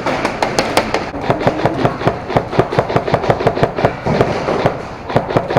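Airsoft guns firing in rapid, irregular strings of sharp snaps, several a second, with a brief lull about four seconds in.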